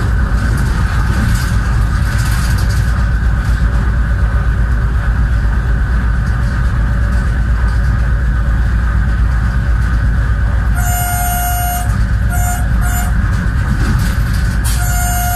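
Locomotive cab noise while running along the line: a steady, loud low rumble of engine and wheels on rail. About eleven seconds in the horn sounds, one blast followed by two short toots, and near the end it sounds again in a longer held blast.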